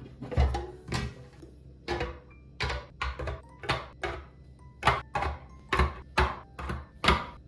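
A quick, irregular series of knocks and light clinks, about two a second, as kitchen items are handled and set down on hard surfaces; a few of them ring briefly.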